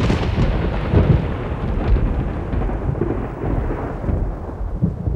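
Thunderstorm: a loud crack of thunder, then long rolling rumbles over a steady hiss of rain, easing off near the end.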